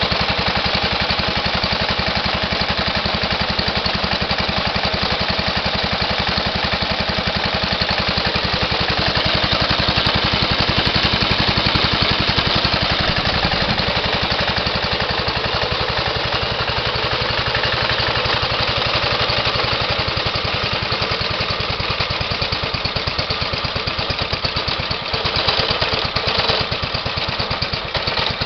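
1928 Briggs & Stratton Model Q single-cylinder engine running steadily with a rapid, even firing beat.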